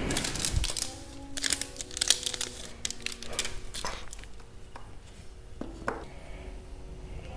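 Paper backdrop sheet rustling and crinkling as it is handled, in crackly clusters that are densest in the first few seconds and thin out later, over background music.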